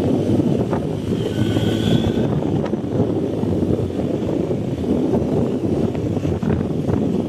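BMW R 1250 GS boxer-twin motorcycle riding off-road, its engine running steadily under heavy wind rush on the microphone. A brief high-pitched squeal comes in about a second in.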